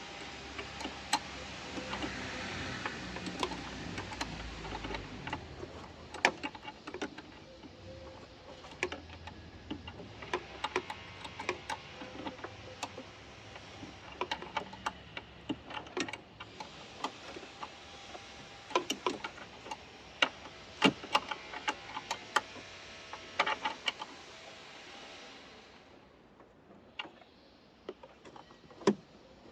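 Irregular sharp clicks and light taps of hand work with tools and parts, scattered and uneven rather than a steady tick, thickest in a flurry a little past the middle.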